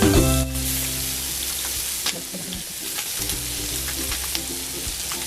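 Food sizzling on a hot non-stick electric grill pan, a steady frying hiss with a few faint ticks. Light background music plays underneath.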